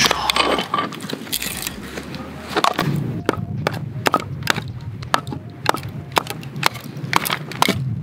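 Batoning very dry firewood: a knife blade knocked into a piece of split wood with a baton, then worked down through it, with a run of sharp cracks, about two or three a second, as the dry wood splits along the grain.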